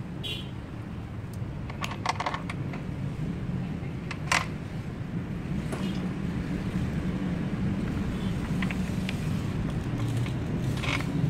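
Scattered light clicks and clinks of engine parts and tools being handled while the intake manifold is refitted, the sharpest about four seconds in, over a steady low hum.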